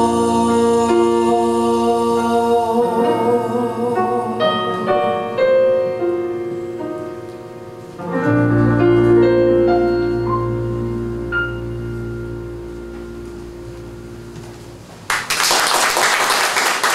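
Closing bars of a live jazz ballad: a female singer holds long notes with vibrato over keyboard chords. About eight seconds in the band lands on a final chord with a deep bass note that rings and slowly fades. Audience applause breaks out suddenly about fifteen seconds in.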